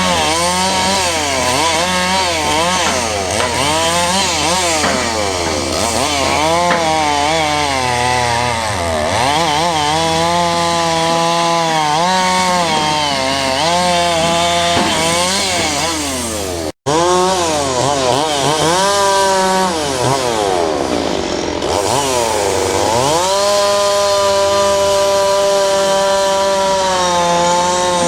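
Caterpillar D7 bulldozer's diesel engine working under load, its pitch rising and falling over and over as the revs change, then holding steadier near the end. The sound cuts out for an instant about two-thirds of the way through.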